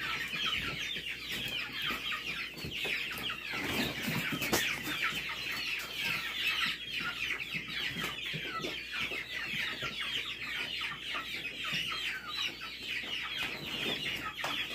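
A crowd of young Cornish cross meat chicks peeping nonstop in their starter box, many high, short chirps overlapping. There is a single knock about four and a half seconds in.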